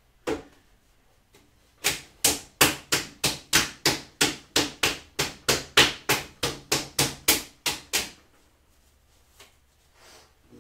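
Bare hands slapping a heavy lump of stiff porcelain clay, patting it into a mound on the potter's wheel head. The smacks come evenly, about three a second, for some six seconds and then stop.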